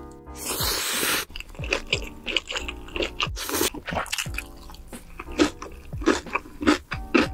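Close-miked mukbang eating: a long noisy slurp of glass noodles in the first second, then repeated crunchy bites and chewing. Light background music plays underneath.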